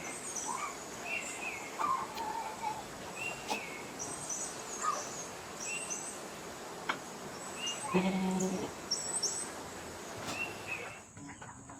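Small birds chirping repeatedly, short high calls over a steady high-pitched tone that stops near the end. About eight seconds in, one short low-pitched animal call.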